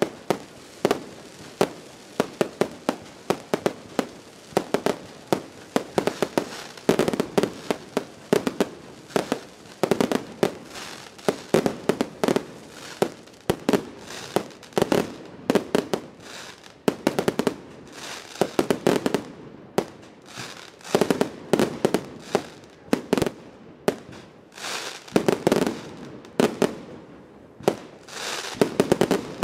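Fireworks finale barrage: a rapid, irregular run of sharp bangs from aerial shells and cakes, several a second, with brief pauses between volleys.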